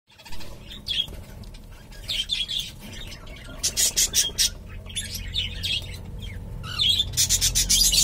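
Cockatiels chirping: short gliding chirps, with two quick runs of sharp pulses, one just before the middle and one near the end.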